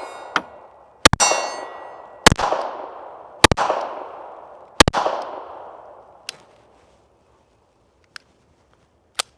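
Luger pistol fired four times at a steady pace, about a second apart; each sharp shot is followed by a metallic clang and a long ringing decay, as of steel targets being hit. A few small clicks follow near the end.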